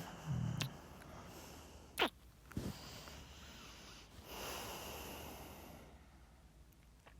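Close-miked mouth and breath sounds: a low voiced breath at the start, a sharp kiss smack about two seconds in with a softer one just after, then a long breathy exhale.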